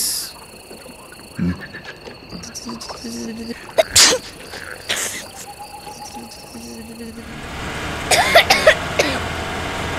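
Crickets chirring steadily in a night ambience, with a few short noisy bursts. About seven seconds in, the low steady sound of a small car driving comes in, with several short sharp squeaks over it.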